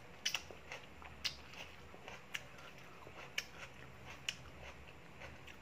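A person chewing close to the microphone: wet mouth clicks and lip smacks at irregular intervals, about one sharp one a second.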